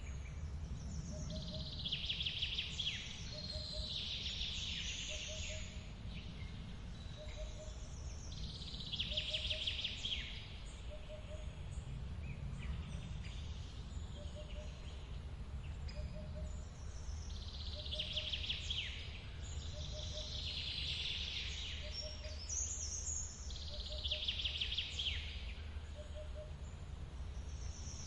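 Forest birds singing short, high song phrases every few seconds over the low steady rumble of a waterfall. A faint short low note repeats evenly about every second and a half.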